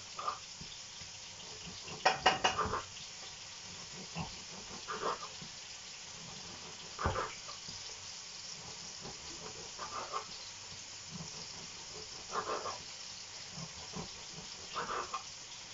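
Kitchen knife cutting chorizo slices in half on a wooden cutting board: the blade taps and knocks on the board in scattered short strokes and small clusters, over a faint steady hiss.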